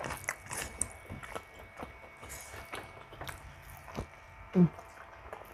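Close-miked chewing of saucy pork ribs and rice, eaten by hand: wet mouth clicks and lip smacks scattered irregularly, with a brief hum about four and a half seconds in.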